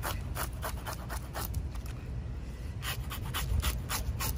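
Kitchen knife blade scraping the scales off a whole flounder on a wooden cutting board, in quick rasping strokes about four a second, pausing for about a second midway and then going on.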